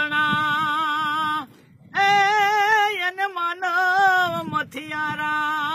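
A singer's high voice sustaining long notes with a steady wavering vibrato, unaccompanied, with a short breath pause about a second and a half in.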